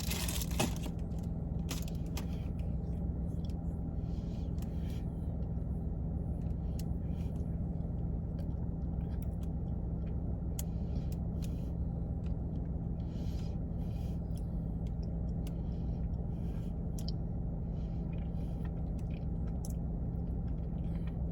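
Steady low mechanical hum with a constant drone, and scattered small clicks over it.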